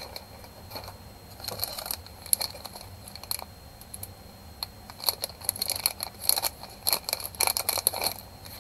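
Packaging being handled, crinkling and crackling in two bouts of quick crackles, one about one and a half seconds in and a longer one from about five seconds in.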